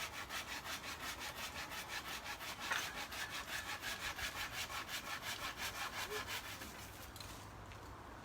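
Hand saw cutting through a fallen wooden branch, with quick, even strokes about four a second; the sawing stops about seven seconds in.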